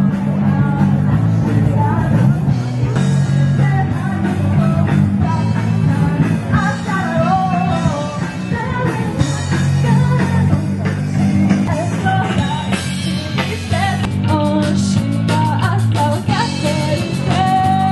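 Live rock band playing: a woman singing over electric guitars and drums, heard steadily and loudly.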